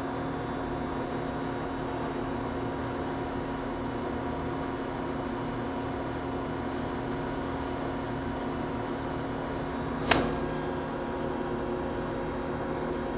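Steady hum of powered-up industrial machinery with several held tones, and one sharp click about ten seconds in.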